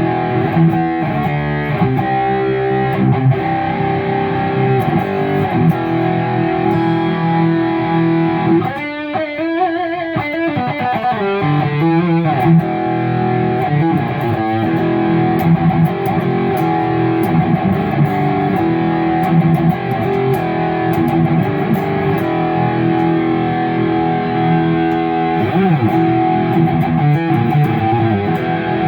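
Kiesel Crescent electric guitar with Kiesel Polarity active pickups playing distorted rhythm through a Mesa Mark IV amp profile. It plays without pause, with sliding notes about nine seconds in and again near the end.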